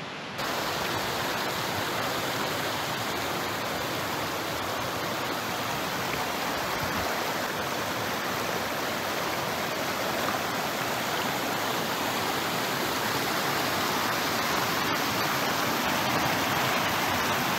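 Mountain creek rushing over rocks in small white-water cascades: a steady rush of water that grows a little louder toward the end.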